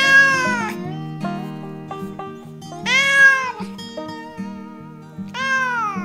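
A kitten meowing three times: short high calls of under a second each, rising and then falling in pitch, over background music.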